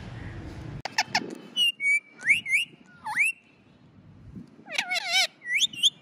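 Pet parrot whistling: a string of quick rising and falling whistles, a brief pause, then a fast warbling trill and one more whistle.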